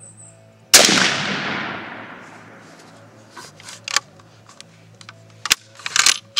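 A single loud rifle shot from a Mosin-Nagant 91/30 firing 7.62x54R, with a long echoing tail that fades over about two seconds. Then come several sharp metallic clicks and clacks as the bolt is worked.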